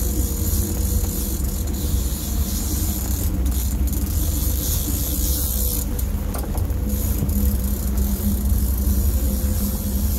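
Fishing boat's engine running steadily at trolling speed, a constant low drone with a steady hum, under wind and water hiss.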